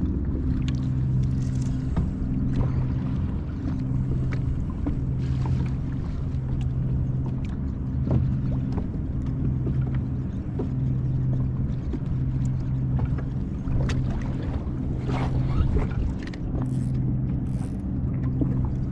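A motor's steady low hum over a constant rumble, breaking off briefly every few seconds, with scattered light clicks.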